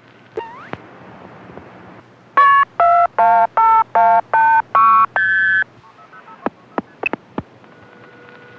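Telephone dialing tones heard over a phone line: a rapid string of eight short multi-tone beeps, the last one longer and higher-pitched. They come after a short rising chirp and are followed by a few clicks, then a steady two-note tone begins near the end.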